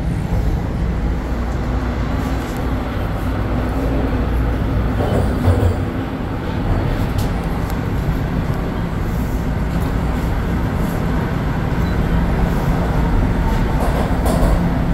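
Toronto subway train running in the tunnel, heard from inside the car: a steady rumble of wheels on rails with a faint low hum underneath.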